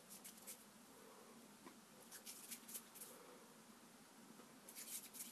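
Near silence with faint clicks and ticks of fingers working soft play dough against a tabletop, in three short clusters: near the start, around the middle and near the end.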